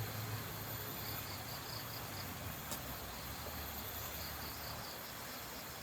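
Insects chirping: two runs of quick, evenly spaced high chirps, about six a second, over a low steady rumble, with a single click in the middle.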